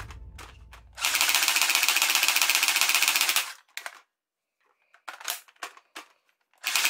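Toy M4-style rifle firing in full auto: a fast, even rattle lasting about two and a half seconds, a few short clicks, then a second burst starting near the end.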